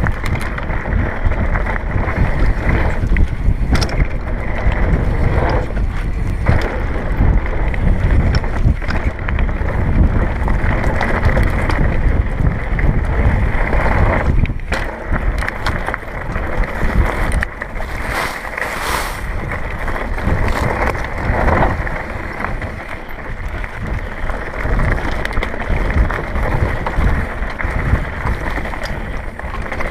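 Wind buffeting a mountain-bike action camera's microphone, mixed with the rattle and knocks of a downhill bike and its tyres over a rough dirt trail. The sound is dull and muffled, with a brief lull about halfway through.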